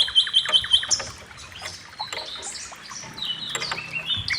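Songbirds chirping: a quick run of about five high chirps in the first second, then scattered varied calls, with chirping picking up again near the end.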